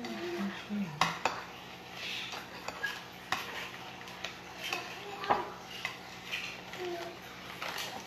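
Small metal cake-decorating tools clinking and tapping as they are handled: a scatter of sharp clicks a second or so apart, the loudest about a second in and again about five seconds in.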